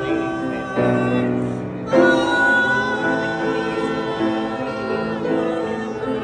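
Piano playing chords, with a voice singing along to the music.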